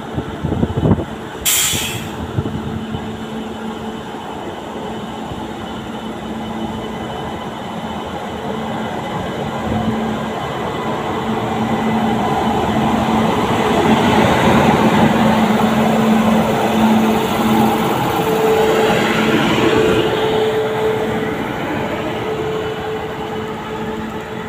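A passenger express train hauled by an electric locomotive passes close by along a station platform. The wheels rumble on the rails, growing louder as the coaches roll past, with a steady hum throughout and one brief sharp burst of noise about a second and a half in.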